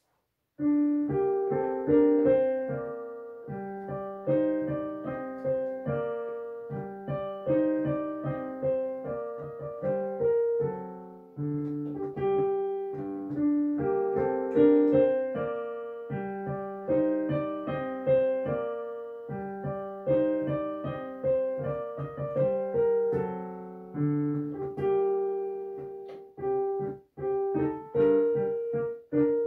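Background piano music: a light melody of quickly fading notes over chords, coming in about half a second in and running on steadily.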